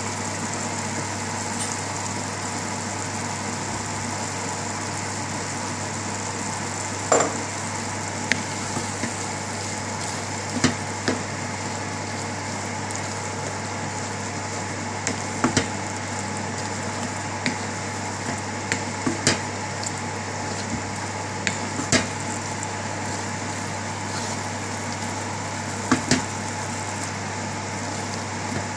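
Minced meat and bolognese sauce sizzling steadily in a frying pan while being stirred with a wooden spoon, the spoon knocking sharply against the pan a dozen or so times.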